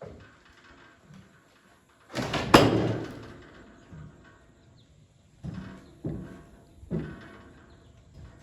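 Heavy knocks and bangs of sawn poplar and sawmill gear being handled on a portable band sawmill: one loud bang with a short ringing tail about two seconds in, then three lighter knocks in quick succession near the end.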